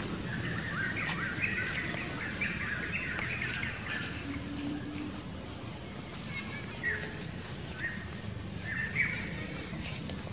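Birds chirping in short, quick calls over a steady low background rumble; the chirps come thick and fast in the first few seconds, then scattered.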